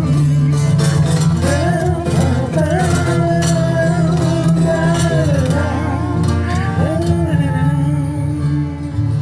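A Christian duet song: a voice singing a gliding melody over acoustic guitar and a steady bass.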